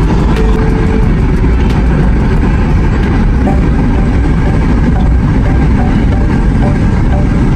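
Steady low rumble of a car driving at speed, heard from inside the cabin: engine and tyre noise on the road.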